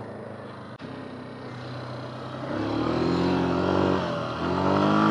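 Yamaha Grizzly 350 quad's single-cylinder four-stroke engine running at low throttle, then revving up about halfway through, easing off briefly near the end and pulling again.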